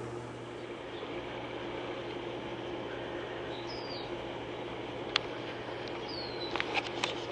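Steady low hum and hiss of background noise, with two faint, short, falling bird chirps. A few sharp clicks come through, the loudest about five seconds in and several more close together near the end.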